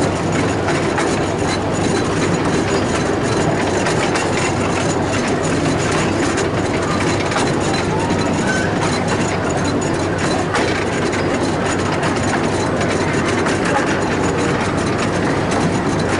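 Miniature railway train running steadily along its narrow-gauge track: a constant engine drone with the wheels clicking and rattling on the rails.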